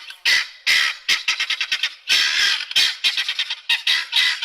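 Guineafowl calling: a harsh, grating chatter of short calls in rapid runs, several a second.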